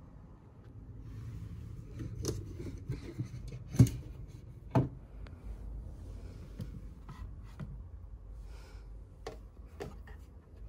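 Handling noise: rustling, with scattered sharp knocks and clicks of objects being moved. The two loudest knocks come about four and five seconds in.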